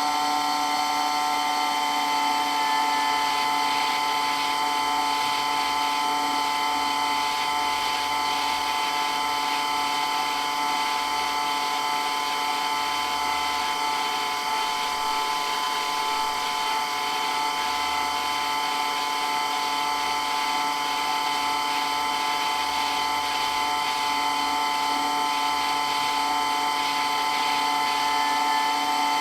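Water pump running steadily: an unchanging whine of several steady tones over a hiss, with no change in speed.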